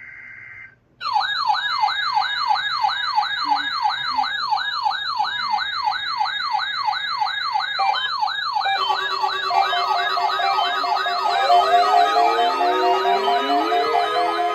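Weather alert radios sounding their alarms together. A short burst of digital alert-header tone cuts off, then about a second in an electronic siren starts warbling rapidly, about three sweeps a second. From about nine seconds in, further alarm tones, beeps and gliding sirens from other receivers join in on top.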